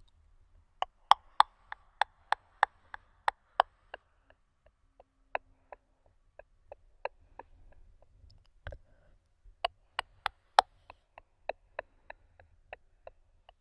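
Close-miked ASMR mouth clicks: sharp, separate clicks about three a second in two runs, sparser and softer in between, with a faint breathy hiss under the first run.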